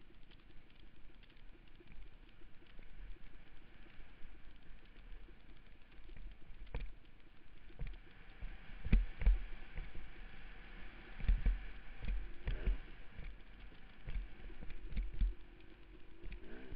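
Muffled helmet-camera audio of a dirt bike riding a rough forest trail: a faint steady engine-and-hiss background, broken by heavy thumps and knocks as the bike jolts over bumps, most of them in the middle and later part.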